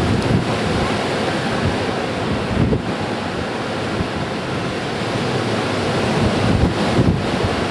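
Blizzard wind blowing steadily, with gusts buffeting the microphone in low thumps, most strongly about three seconds in and again near the end.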